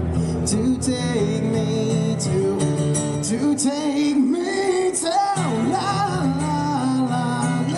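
Male singer performing a song live, accompanying himself on acoustic guitar, amplified through a small PA.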